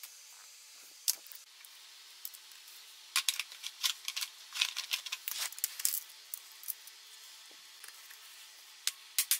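Metal hand tools and small engine parts clinking and clicking against each other as they are handled. There is one sharp click about a second in, a rapid irregular run of clicks for a few seconds in the middle, and a few more near the end.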